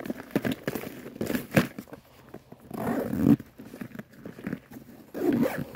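Fishing tackle being rummaged through: plastic lure packaging and a tackle bag crinkling and rustling, with irregular small clicks and scrapes and a few louder crinkles about a second and a half, three seconds and five seconds in.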